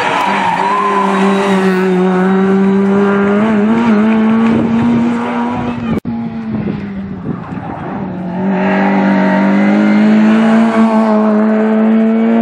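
Rally car engines held at high, nearly steady revs: one car takes a bend with a few brief wobbles in pitch; an abrupt cut about six seconds in; then a second rally car's engine growing louder as it approaches, its revs again held steady.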